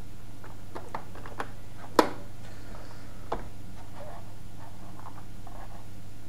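Scattered clicks of computer controls being operated, with one sharp click about two seconds in, over a steady low electrical hum.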